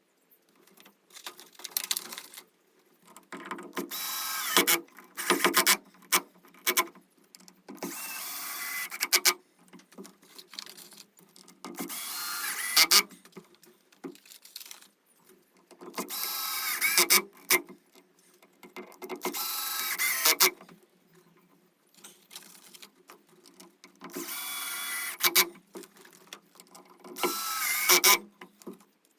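Cordless drill/driver running in about seven short bursts, each winding up in pitch, driving screws in, with a few clicks between bursts.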